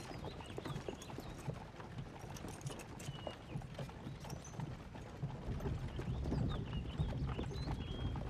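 Horse hooves clip-clopping in an irregular run of knocks over a low rumble.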